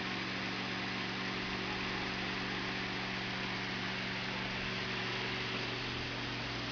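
Electric fan running: a steady motor hum with an even rush of air.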